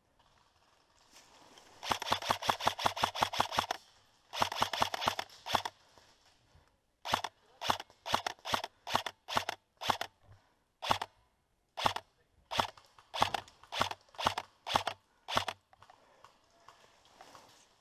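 Airsoft rifle firing: two quick full-auto bursts of rapid clacking shots, then a string of about twenty single shots, two or three a second, that stops near the end.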